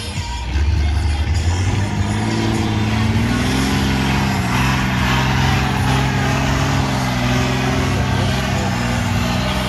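Competition trial truck's diesel engine revving up about two seconds in, then held at high revs under load as the truck pulls up a steep dirt slope.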